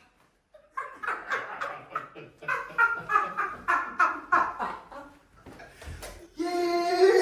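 A person laughing in a quick run of short bursts, then, after a brief thump about six seconds in, a long, loud held cry.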